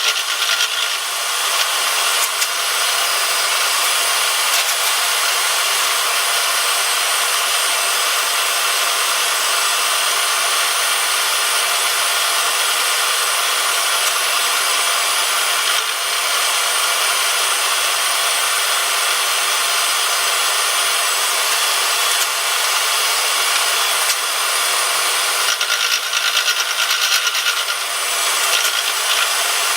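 Milling machine taking a cut across the surface of a steel mill vise, a steady metal-cutting noise with constant high tones that shifts briefly near the end.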